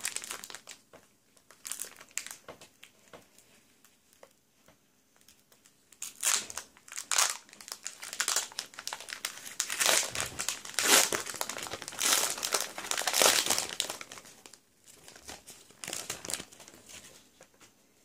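Foil wrapper of a Pokémon card booster pack crinkling and rustling in irregular bursts as it is handled and opened. It goes quiet for a few seconds early on, then crinkles loudest through the middle stretch and tails off near the end.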